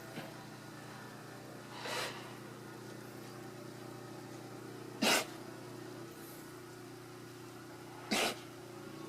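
An alpaca sneezing three times, about three seconds apart, the middle sneeze the loudest: part of a sneezing fit that keeps going.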